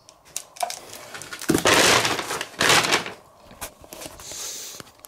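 Handling noise: a loud rush of rustling and knocks lasting about a second and a half, with scattered clicks before and after.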